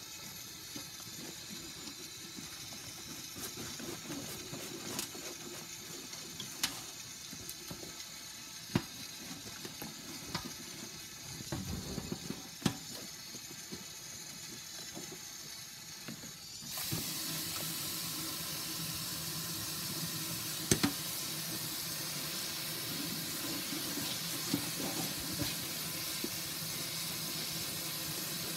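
Kitchen tap running onto a mesh strainer being rinsed in a stainless steel sink, with a few sharp clicks. About two-thirds of the way in, the water gets suddenly louder and hissier.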